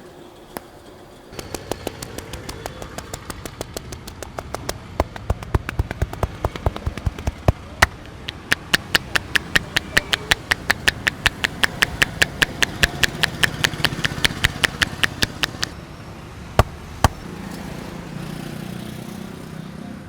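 Barber's tapping massage: a quick, even run of hand slaps on the body, about four a second, growing louder, then stopping. Two separate sharp strikes follow.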